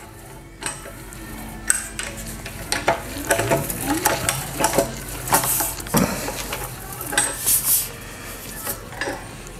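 Thin sheet metal, rolled into a cylinder in a manual slip roll, being handled and shifted: irregular metallic scrapes and rattles, with a sharp clank about six seconds in.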